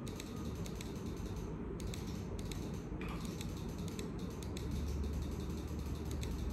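Colouring pencil scratching on paper in quick, short shading strokes that come as many small ticks, over a steady low rumble.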